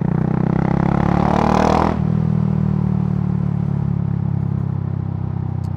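KTM 690 Duke's single-cylinder engine running on the move, louder and pulling harder with a rushing hiss for about the first two seconds, then dropping suddenly to a steady, even cruise.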